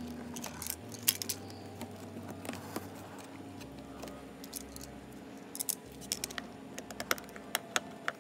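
Scattered light clicks and small metallic rattles of hand tools and wiring parts being handled, coming in a quicker run of clicks over the last few seconds, over a faint steady hum.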